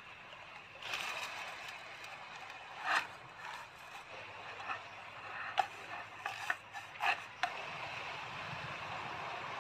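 A wooden spoon scraping and knocking in a nonstick frying pan as dry vermicelli is stirred over a portable gas stove, with sharp clacks between about three and seven and a half seconds in, over a steady hiss.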